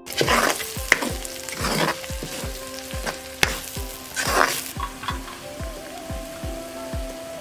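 Garlic, green chillies, dried red chillies and curry leaves sizzling in hot oil in a wok, stirred with a wooden spatula: the sizzle swells three times as the mix is turned, with a couple of sharp clicks.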